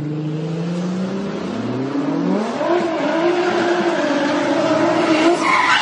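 A car engine revving hard, its pitch climbing over the first couple of seconds and then held high and steady as the car spins its tyres in a burnout; the tyres begin to squeal near the end.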